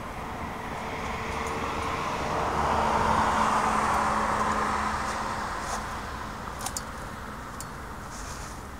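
A car passing on the road, its tyre and engine noise swelling to a peak about three seconds in and then fading away. A few light clicks come near the end.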